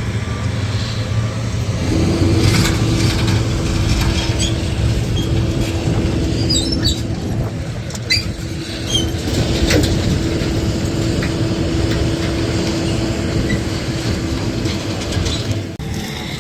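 A motor vehicle on the move: a steady low engine and road rumble, joined about two seconds in by a steady hum, with scattered light rattles and clicks.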